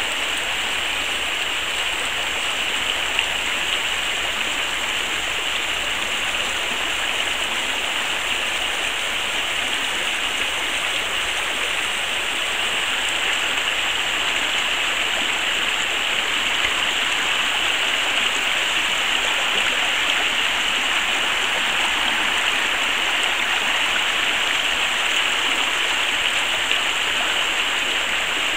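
Small river waterfall: water splashing and rushing in a steady, unbroken hiss.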